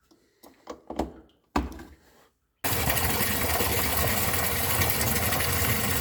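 A few knocks and clicks of handling. Then, about two and a half seconds in, a newly installed submersible sump pump switches on abruptly and runs steadily: a low motor hum under a loud rushing noise.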